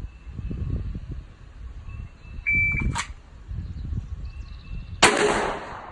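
Shot timer start beep, then about two and a half seconds later a sudden loud blast of 9mm pistol fire from a Glock 19X with a ringing tail.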